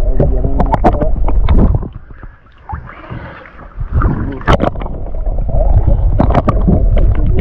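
Loud, rumbling water noise with splashes and knocks around a camera dipped at the side of a boat, with muffled voices. It eases for a second or so about two seconds in, then picks up again.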